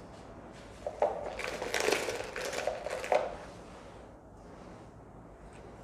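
Plastic crinkling as a bag is handled, starting about a second in and lasting about two seconds, with a few sharper crackles.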